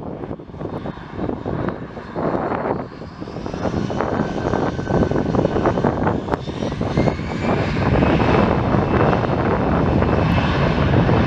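Airbus A321's twin CFM56-5B turbofan engines spooling up for takeoff: a whine rising in pitch over the noise as the engines get louder, then running steady and loud at takeoff thrust as the airliner starts its takeoff roll.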